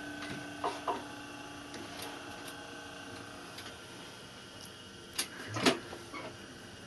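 Clicks and knocks from handling fabric and the handwheel at an industrial sewing machine, over a steady hum. Two light clicks come about a second in, and a louder knock comes near the end. The machine is not stitching.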